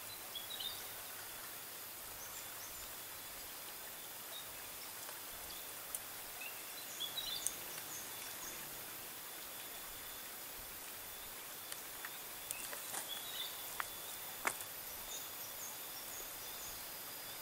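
Quiet outdoor ambience: scattered short bird chirps over a steady high hiss, with a few sharp clicks, the loudest about three-quarters of the way through.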